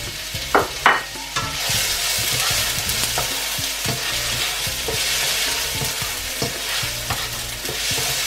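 Diced onion sizzling in hot olive oil in a frying pan while a plastic slotted spatula stirs and scrapes it, as the onion is sautéed until brown. Two sharp taps of the spatula on the pan come in the first second, then a steady sizzle with light scraping.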